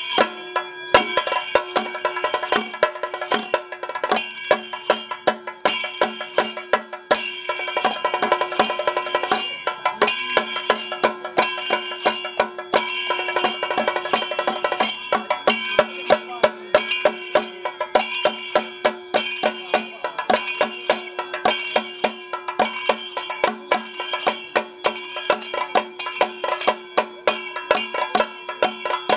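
Kerala temple percussion ensemble: chenda drums and elathalam hand cymbals playing a fast, steady rhythm with ringing metallic cymbal strokes, over a steady held note.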